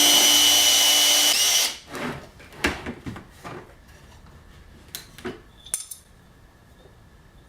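A power drill's motor runs steadily for under two seconds and then stops, followed by several light knocks and clicks as the wooden jig holding the bottle is taken apart.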